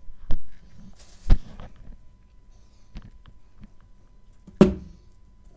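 About five sharp knocks and clacks of objects handled and set down on a tabletop, the loudest about a second in, and another strong one near the end with a brief ring after it.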